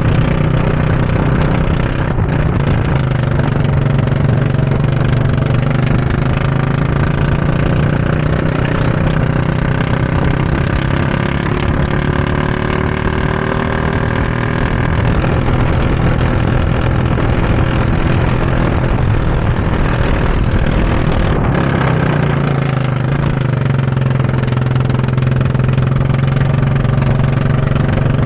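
Go-kart engine running hard on the track, its pitch rising and falling as the throttle opens and closes through the corners.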